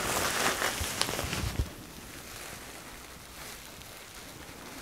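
Plastic bubble wrap rustling and crinkling as it is unfolded by hand, with a few sharp crackles in the first second and a half, then only faint rustling.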